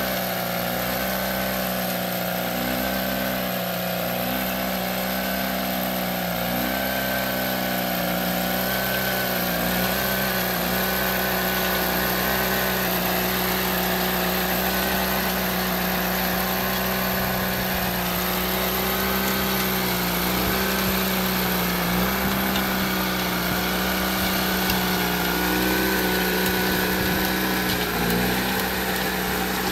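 Honda F190 walk-behind rotary tiller's engine running steadily while tilling soil.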